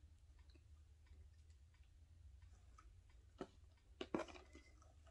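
Near silence: a steady low room hum with a few short, faint clicks of handling, the loudest a little past three and four seconds in.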